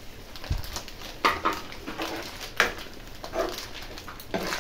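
Metal spoon stirring and scraping through watery paneer gravy in a non-stick kadai, with scattered clinks and a few short squeaky notes.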